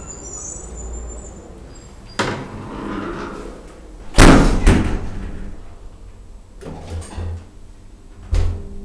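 DEVE hydraulic elevator's sliding doors moving and closing. A thump comes about two seconds in, the loudest slam about four seconds in with a second knock right after, and a few lighter knocks follow near the end.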